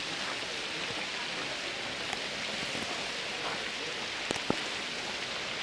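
Steady hiss of water splashing in a large stone fountain, with a couple of faint clicks about four and a half seconds in.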